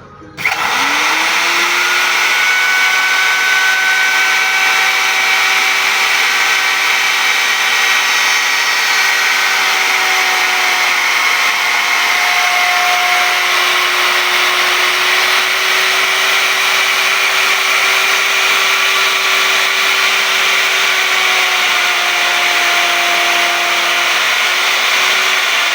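Electric woodworking power tool switched on about half a second in, its motor spinning up quickly and then running steadily at full speed with a loud, even whine.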